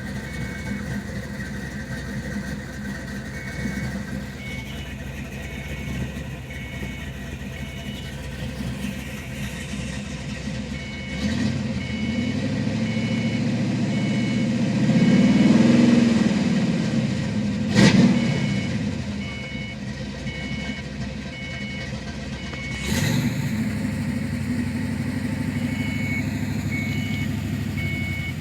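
1991 Ford Mustang engine idling with a misfire, revved once about halfway through, the pitch rising then falling back to idle, with a sharp click shortly after. A faint high-pitched beeping repeats in the background.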